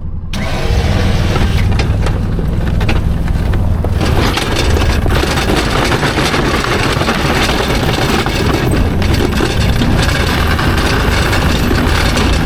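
Side-by-side UTV engine running steadily, coming in loud at once and holding level throughout.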